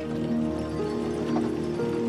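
Background music of sustained, held notes, changing pitch a couple of times.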